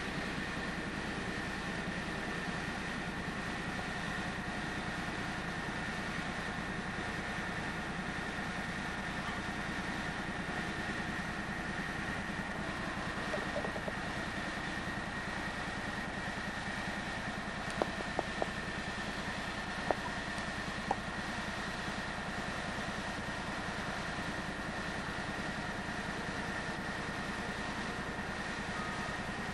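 Steady hum of a running vehicle with a thin constant whine, and a few faint clicks about two-thirds of the way through.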